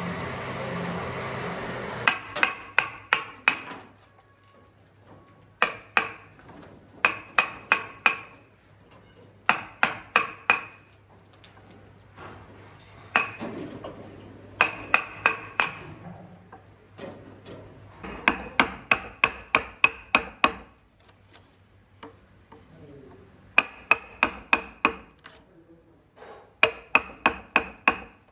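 Hammer driving nails: short runs of quick, ringing strikes, a few seconds apart. A rougher, steady noise comes before them, in the first two seconds.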